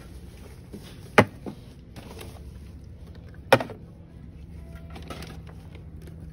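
Metal cans set down on a checkout counter while groceries are bagged: two sharp knocks about two seconds apart, over a steady low hum.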